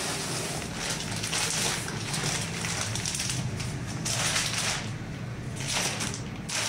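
Clear plastic packaging around a large pad of paper crinkling and rustling in uneven surges as hands handle and smooth it.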